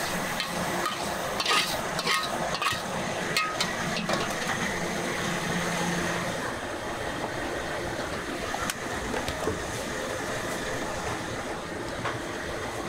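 Instant noodles being stir-fried in a wok: a metal spatula clinks and scrapes against the pan several times in the first few seconds, with one more clink later, over a steady hiss.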